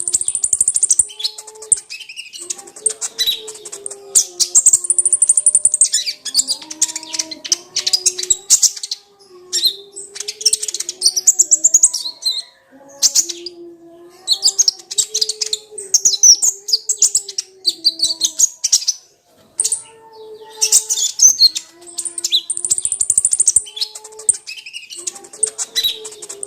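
Kolibri ninja (a sunbird) singing: rapid, high-pitched twittering phrases a few seconds long with short pauses between them. A faint low melodic tone runs beneath the song.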